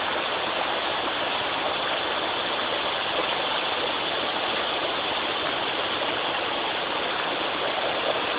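River water running steadily, an even rushing hiss with no splashes standing out.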